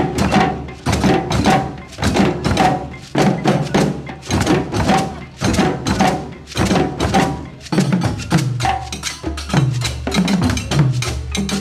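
West African drum ensemble playing together: many hand-struck djembes over stick-played dunun bass drums in a fast, steady, repeating rhythm.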